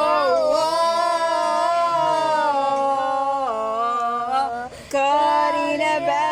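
A single voice singing unaccompanied in long held vowel notes, with a brief break about five seconds in.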